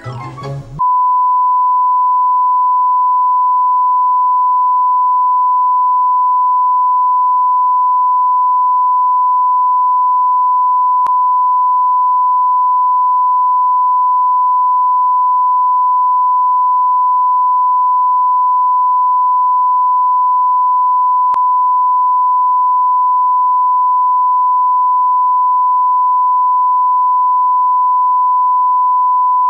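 Broadcast 1 kHz reference tone, a steady pure beep sent with colour bars as a television test signal. It cuts in abruptly under a second in, as the end of a short burst of channel ident music gives way to it, with two faint clicks about ten seconds apart.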